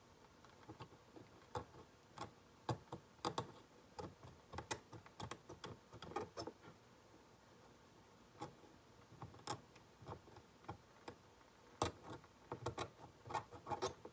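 Steel dental hand scaler working against the plastic teeth of a typodont: irregular sharp clicks and scrapes as the tip strokes and taps along the teeth, with a short lull about halfway through.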